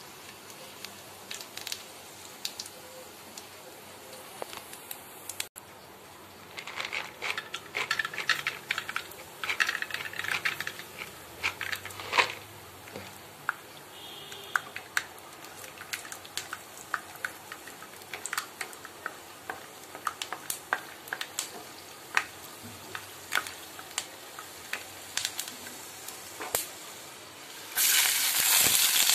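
Whole spice seeds and then peanuts frying in hot oil in a kadai: a low hiss with scattered sharp crackles and pops, busiest a few seconds in. Near the end, chopped onions tipped into the oil set off a sudden loud, steady sizzle.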